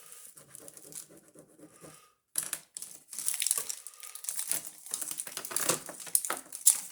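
Ballpoint pens scribbled hard on paper and handled: quick scratching, ticking and crinkling, densest from about two and a half seconds in. The old pens are being tested and are mostly dry.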